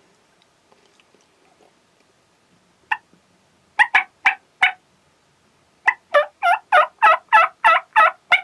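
Wild turkey yelping: one short yelp, a group of three, then a quick even run of about eight yelps near the end.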